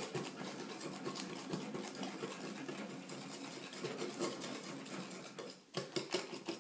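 Wire whisk beating a wet mixture of egg, sugar and apple compote in a glass bowl, its wires clicking rapidly and evenly against the glass, with a brief pause a little over five seconds in before the strokes resume.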